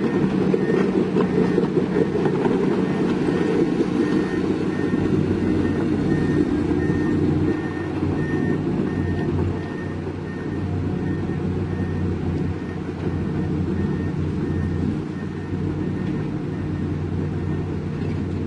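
Heavy diesel engine running steadily, with a reversing alarm beeping about one and a half times a second through roughly the first half. The engine gets somewhat quieter a little past the middle.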